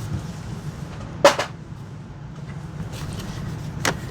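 Hard plastic parts of a vacuum cleaner's housing knocking as they are handled: a sharp double clack about a second in, the loudest, and a single one near the end, over a low steady hum.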